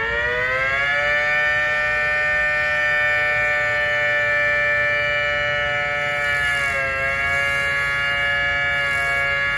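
Small motor-driven model siren (CB Siren Productions Model 2) run on an 18-volt drill battery, winding up to full pitch within the first second and then holding a steady wail, with a brief dip in pitch about seven seconds in.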